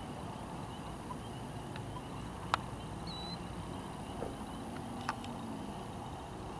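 Steady low background rumble and hiss with a few sharp clicks, the loudest about two and a half seconds in, and one brief high chirp around three seconds.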